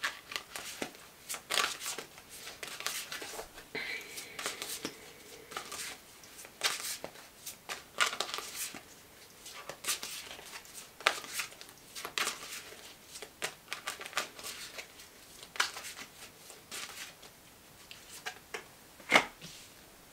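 Tarot deck being shuffled by hand: a run of irregular papery riffles and card taps, with a sharper tap near the end.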